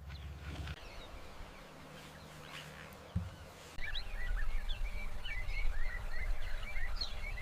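Birds chirping in a quick run of short calls, starting about halfway through, over a low steady rumbling background.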